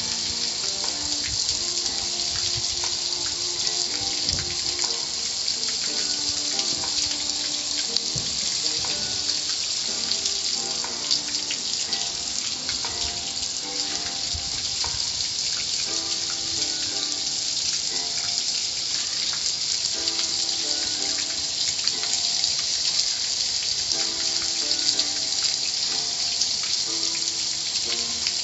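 Car wash water jets spraying in a steady hiss, with faint music underneath.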